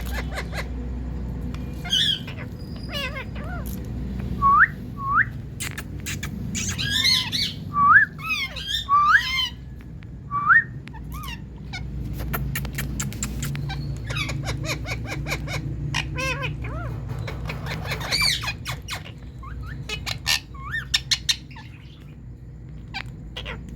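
Indian ringneck parakeet calling: squawks and a run of short rising whistles in the first half, then quicker chattering calls, with a steady low background rumble.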